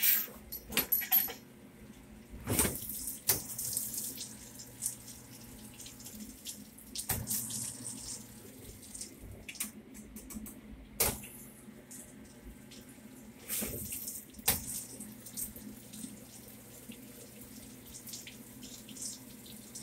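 Water running and splashing inside a wet stainless-steel machine with a foaming tank, over a steady machine hum. Sharp knocks and clatters come every few seconds, with a cluster just at the start.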